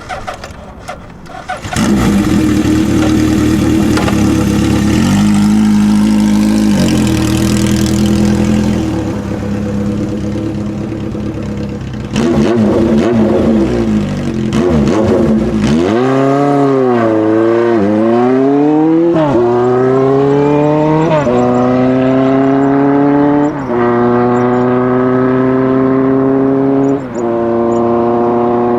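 Honda CB750 Four's inline four-cylinder engine through its 4-into-1 exhaust, running loudly at a steady pitch, then accelerating hard through the gears in the second half. The pitch climbs in each gear and drops sharply at each of about four upshifts.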